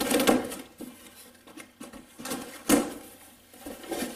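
A cardboard shipping box being handled and opened, with rustling and short clicks as the contents slide and knock about inside, and one sharp knock about two and a half seconds in.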